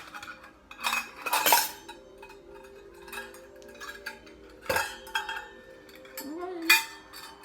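Kitchen utensils and measuring spoons clinking and clattering against bowls and dishes as sugar is added to the mixing bowl: a handful of sharp clinks, the loudest near the end.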